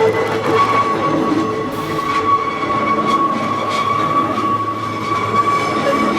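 Hakone Tozan Railway Moha 1 electric railcar, an old type with nose-suspended traction motors, running with a steady high whine over rail noise.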